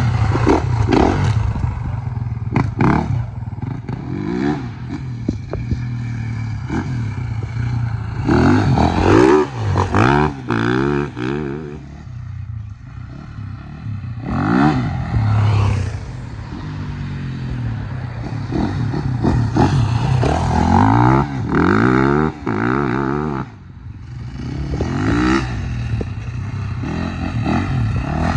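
Husaberg FE 450 four-stroke single-cylinder dirt bike being ridden hard, the engine revving up and dropping back again and again with the throttle. The engine falls quieter for a couple of seconds around twelve seconds in and briefly again near the end.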